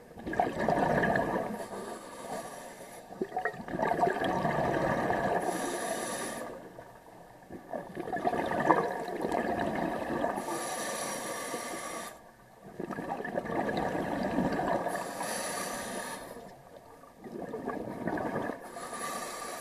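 Scuba diver breathing through a regulator underwater, about four breaths. Each breath is a short high hiss on the inhale, followed by several seconds of bubbling as the exhaled air vents.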